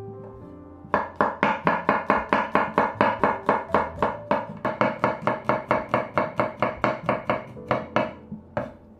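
Chef's knife slicing garlic cloves on a wooden cutting board: a quick, even run of blade taps, about four a second. It starts about a second in and stops near the end.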